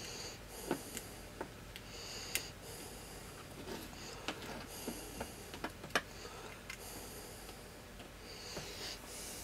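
Light clicks and taps from a small circuit board and needle-nose pliers being handled as a tuning capacitor is fitted and its tabs are worked. Soft hissy breathing through the nose comes back every couple of seconds.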